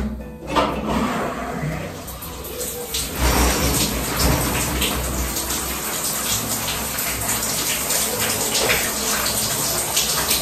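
Shower water running: a steady spray of water starting just after the tap is turned on and growing fuller about three seconds in.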